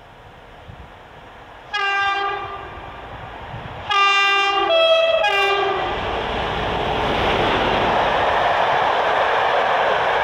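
Horn of a PKP class SU46 diesel locomotive: one short blast about two seconds in, then a longer blast that switches between two notes and back. The locomotive and its passenger coaches then pass close by, a loud steady rumble of engine and wheels on rail.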